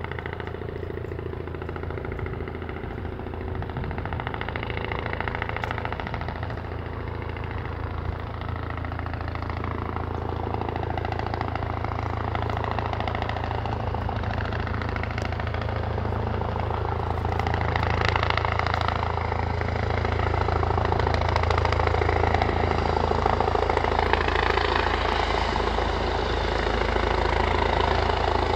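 Helicopter descending to land, a steady engine and rotor drone that grows gradually louder as it comes closer, swelling further about two-thirds of the way through.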